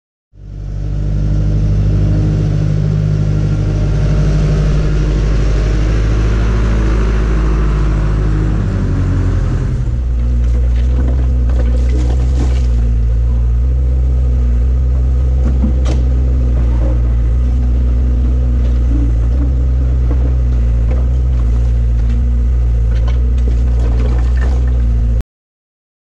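John Deere 310C backhoe loader's diesel engine running at raised revs, dropping about ten seconds in to a lower, steady drone as the backhoe works. Scattered knocks and scrapes of rock against the bucket come through over the engine.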